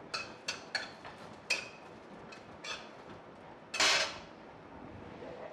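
A metal spatula scraping and clinking against a metal kadhai, about five sharp clinks with a short ring, as garlic and green chillies are stirred dry, without oil. About four seconds in comes a short, loud rush of hissing noise.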